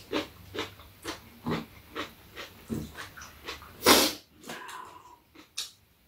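Close-up eating sounds of two people eating pork cutlet and udon: short chewing and lip-smacking noises about twice a second, with one louder slurp about four seconds in.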